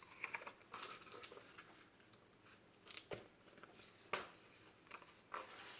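Faint paper rustling with a few brief soft taps, typical of a picture book's page being handled and turned.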